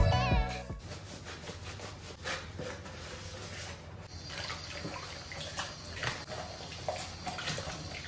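Water running from a tap into a sink, with a few light knocks.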